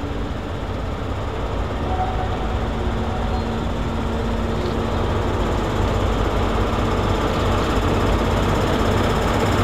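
Diesel locomotive running, its engine noise growing steadily louder as it approaches, with a steady engine hum coming in about two seconds in.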